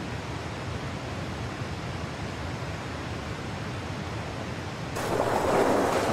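Rushing water of river rapids, a steady noisy wash. About five seconds in it turns suddenly louder and fuller for about a second.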